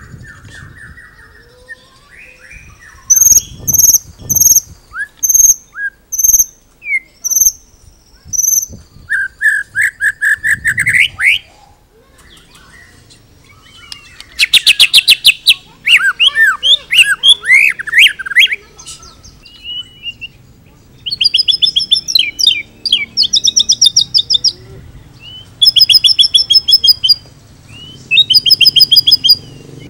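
White-rumped shama singing in loud, varied phrases separated by short pauses: a run of repeated clear notes, fast rising trills, a dense burst of mixed notes, then rapid rattling phrases repeated several times near the end.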